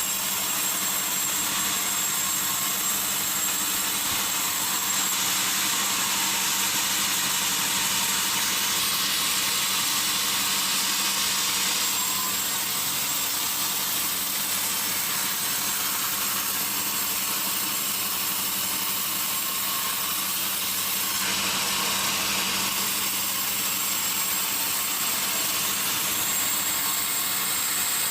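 Sawmill saw running steadily while cutting teak wood: an even, hissing machine noise over a steady low hum.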